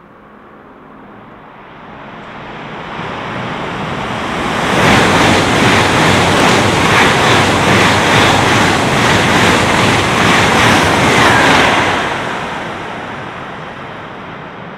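Eurostar e320 (Siemens Velaro) electric high-speed train passing through at speed: a rushing noise builds as it approaches, holds loud for about seven seconds with a faint regular pulse as the coaches go by, then fades away.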